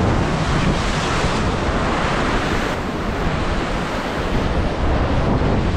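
Ocean surf breaking and churning against a rocky cliff base: a continuous rush of foaming water.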